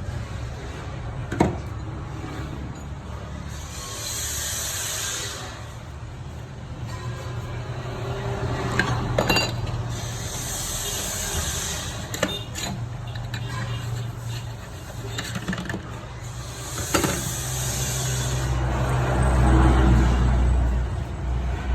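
Swaraj 855 tractor's three-cylinder diesel engine running with a steady hum, getting louder near the end, with a few sharp metallic clinks.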